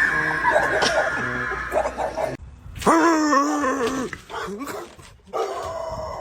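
A dog vocalizing, with a drawn-out pitched call about three seconds in lasting about a second. The sound breaks off abruptly twice.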